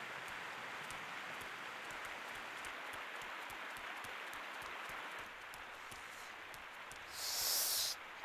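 Steady rushing of a stream flowing under a footbridge, an even wash of water noise. Near the end a short, high hiss sounds for under a second.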